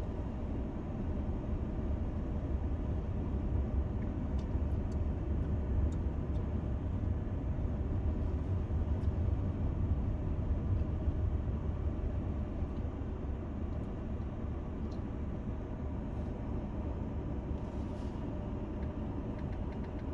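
Car driving slowly, heard from inside the cabin: a steady low engine and road rumble that swells slightly midway.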